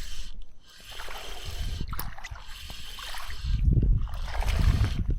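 Water sloshing and gurgling, swelling louder about a second and a half in and again from about three and a half seconds.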